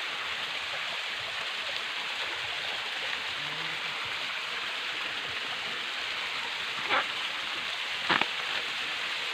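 Steady rush of running water from a small waterfall. Two short knocks near the end, the second one doubled, are the loudest moments.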